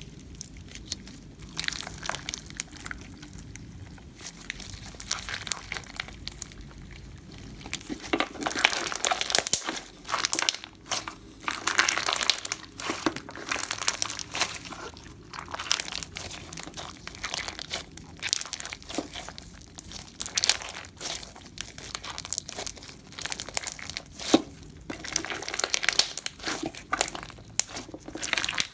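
Clear frog spawn slime with beads being squished and pressed by hand, making a string of small crackling, popping clicks, sparse at first and much denser from about eight seconds in.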